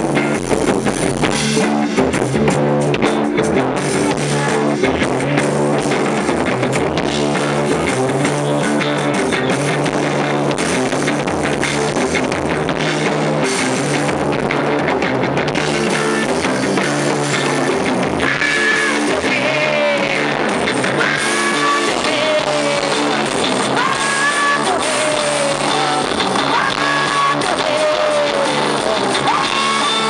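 Live rock band playing electric guitar, bass and drum kit, recorded close to the PA speakers on a low-quality camera, so the sound is harsh and distorted. A woman's sung vocal line comes in a little past the middle.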